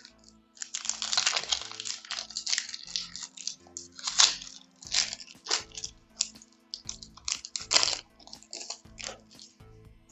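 Foil Pokémon card booster pack being crinkled and torn open, in a run of irregular rustling crackles, with soft background music underneath.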